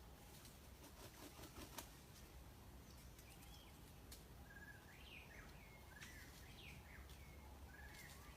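Faint, high chirps of small birds, a string of short calls with quick upward and downward pitch glides in the second half, over quiet outdoor background with a few faint clicks near the start.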